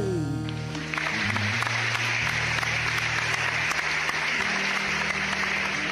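Applause starting about a second in, over low sustained background music. At the very start a falling swoosh sound effect tails off.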